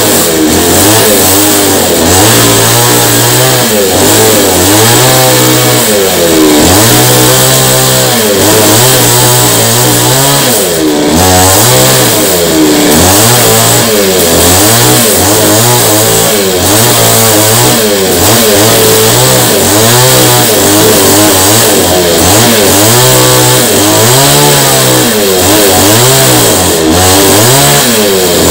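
Gasoline chainsaw revving up and dropping back again and again, about every one and a half to two seconds, as its bar is swung across the face of a wooden root slab, shaving the uneven surface flat.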